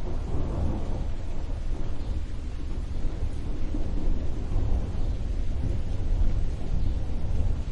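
Thunder rumbling, a long low roll that swells about half a second in and keeps going, over the steady hiss of rain.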